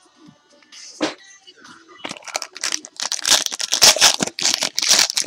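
Crinkling and rustling of trading-card pack wrappers being handled, sparse at first and then dense and busy from about two seconds in.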